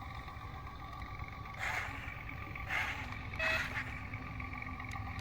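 A machine's motor running with a steady high whine over a low rumble, with short bursts of hiss about a second and a half in, near three seconds, and near the end.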